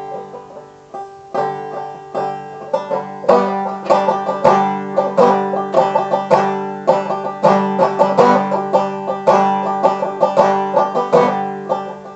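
Banjo picking an instrumental break between sung verses, a quick run of plucked notes that grows busier and louder about three seconds in.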